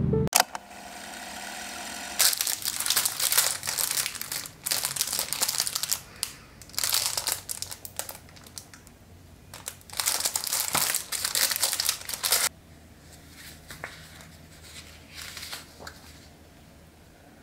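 Plastic wrapper of a pack of origami paper crinkling as it is handled and opened, in irregular bursts for about ten seconds. After that come quieter rustles of the paper sheets being spread out.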